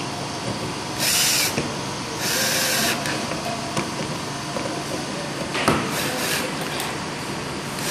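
Bosch 9.6 V cordless drill/driver run in two short bursts, about a second in and again about two seconds in, driving the screws of a scooter handlebar clamp. A single knock follows near six seconds.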